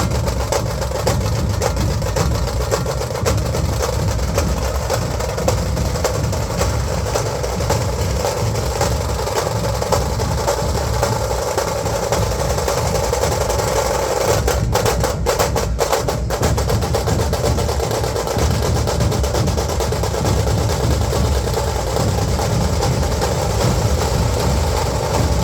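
Dhol drums played by a procession drum troupe, beating a fast, dense, unbroken rhythm at a steady loud level.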